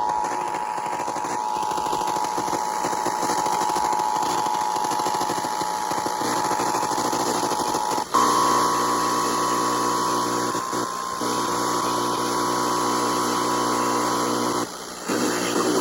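Emergency Alert System attention tone: a steady electronic alert tone that switches, about eight seconds in, to a slightly higher and louder tone with a low steady hum beneath it, then breaks off shortly before the end.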